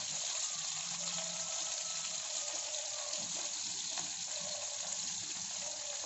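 Dried salted fish frying in hot oil in a kadai: a steady, even sizzle.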